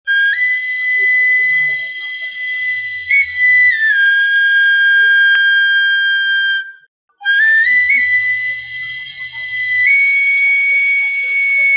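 Intro music: a high flute-like wind instrument plays slow, long held notes that step up and down, in two phrases with a short break about seven seconds in.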